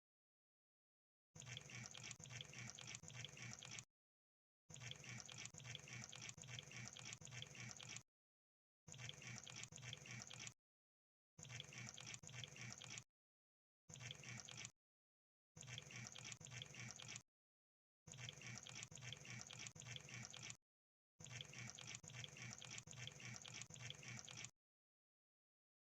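Crab sound effect: faint bursts of rapid crackling clicks, eight of them, each lasting from about one to three seconds and broken by short silent gaps.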